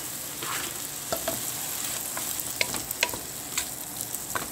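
Asparagus cream soup heating in a pot on the stove, with a steady sizzling hiss and scattered small clicks.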